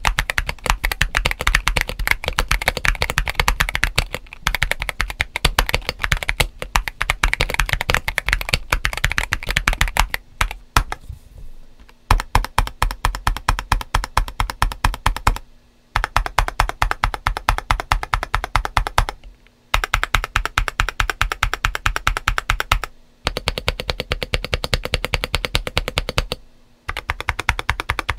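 Fast typing on a GAS67 mechanical keyboard modded for a thocky, crunchy sound: lubed Gazzew U4T tactile switches under MG White SA-profile ABS keycaps, with an IXPE switch sheet and polyfill in the case. Rapid key strokes, broken by a few short pauses, the longest about ten seconds in.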